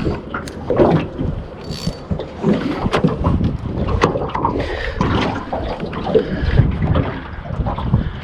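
Wind buffeting the microphone, with water slapping and knocking irregularly against the hull of a small fishing boat.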